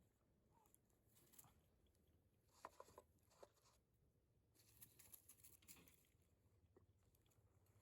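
Faint handling noises: a few small, sharp clicks about two and a half to three and a half seconds in, then a soft rustle a little later.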